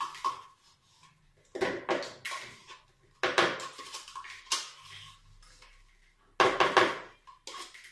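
A metal spoon scraping stirred yogurt out of a plastic yogurt cup and clinking against the cup and mixing bowl, in three short clusters of scrapes and taps with quiet gaps between.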